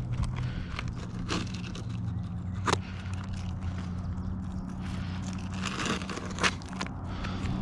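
Asphalt shingles being handled and scraped during a roof repair, with a few sharp taps, the strongest about a third of the way in and again near the end, over a steady low machine hum.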